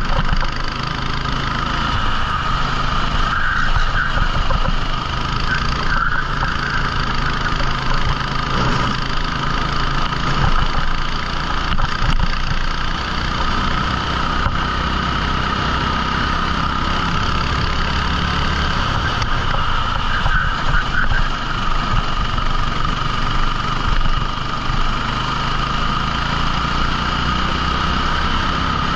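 Rental kart's 14 hp engine running continuously on track, its pitch shifting a few times.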